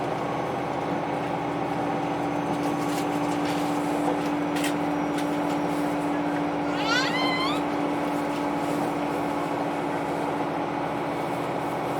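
Diesel engine of a KiHa 261-5000 series railcar running steadily under load as the train climbs, a constant droning hum. About seven seconds in, a brief high-pitched rising squeal cuts across it.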